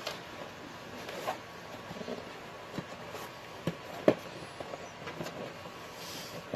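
Cardboard shipping box being handled and turned over on a hard floor: scattered light knocks and scrapes, the sharpest knock about four seconds in.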